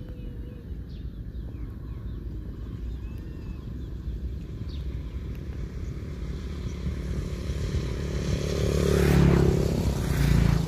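A small engine running steadily, growing louder and passing close by about nine seconds in.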